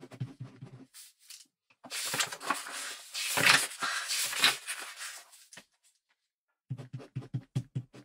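Ballpoint pen writing on paper: a run of short, quick strokes, then a louder stretch of continuous scratching lasting about three and a half seconds, a short pause, and short strokes again near the end.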